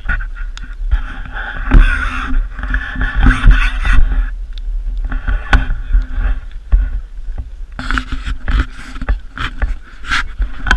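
Wind buffeting the microphone of a handheld camera on a selfie stick, with scattered knocks from handling the stick.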